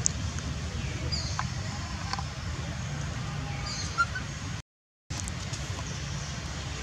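Outdoor background sound: a steady low rumble with a short high chirp heard twice, a few seconds apart. The sound cuts out completely for about half a second about two-thirds of the way through.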